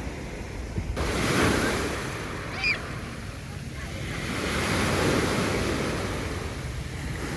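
Sea waves breaking and washing up on a sandy beach, swelling about a second in and again around five seconds, with wind rumbling on the microphone. A brief high chirp sounds near the middle.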